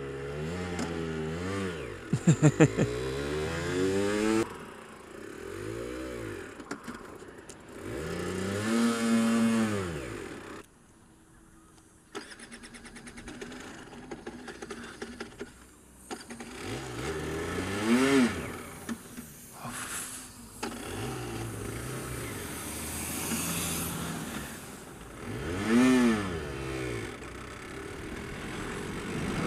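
Aprilia RS125's single-cylinder two-stroke engine revved up and down again and again as the rider pulls away. About ten seconds in it cuts out to near silence, as in a stall, then fires up again with a fast even beat and is revved several more times.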